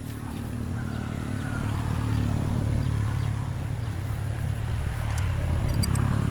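An engine running steadily with a low rumble, growing louder over the first couple of seconds.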